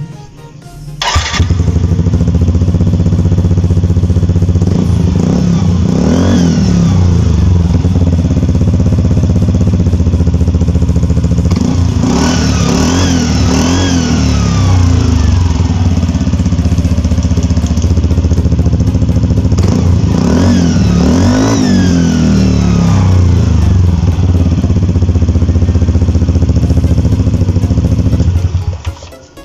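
Yamaha NMAX scooter's single-cylinder engine starts about a second in, idles and is revved three times. Each rev brings a rising and falling turbo-like whistle from a bent metal plate fitted at the radiator fan. The engine cuts off near the end.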